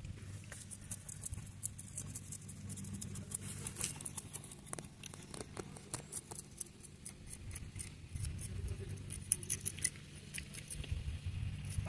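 A knife scraping scales off a jaraqui fish: many quick, irregular scratchy clicks over a steady low hum.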